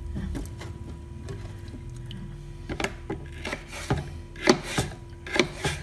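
Knife cutting raw peeled potato on a wooden cutting board: quiet slicing at first, then from about halfway a run of sharp knocks as the blade meets the board. A faint steady hum runs underneath.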